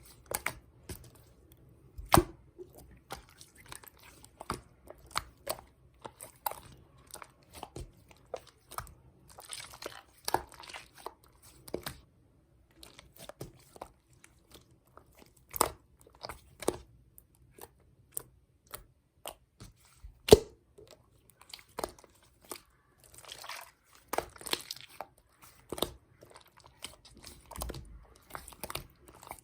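Slime being pressed, folded and stretched by hand. It gives off irregular sharp clicks and pops from trapped air pockets, with a few short stretches of soft crackling.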